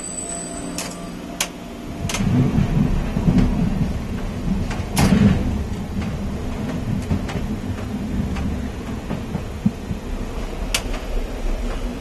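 Suburban commuter train running, heard from inside the driver's cab: a loud, steady rumble of wheels on rails that swells about two seconds in, with a few sharp clacks scattered through it.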